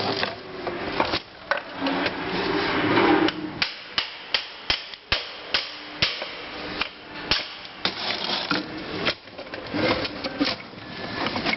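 Metal scraping and clattering, then a run of about a dozen sharp hammer knocks at roughly two a second, as parts of a manual gearbox are knocked apart during teardown.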